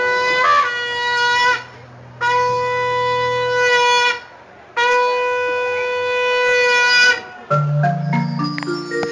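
Three long blasts on a conch shell (shankha), each held at the same pitch, the first bending slightly near its start. About seven and a half seconds in, a quick run of musical notes starts the music.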